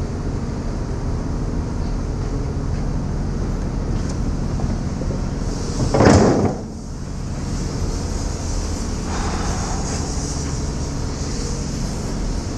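A piece of scrap metal is heaved into a scrap bin, with one loud clatter about six seconds in, over a steady low rumble.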